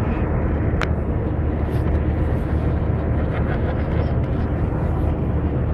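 Steady low rumble of a moving car heard from inside the cabin, with one short click about a second in.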